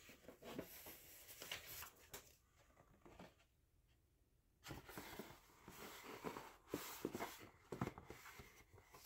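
Cardboard and paper rustling and sliding as a vinyl record's gatefold jacket and a card insert are handled, in two spells with a short pause in between.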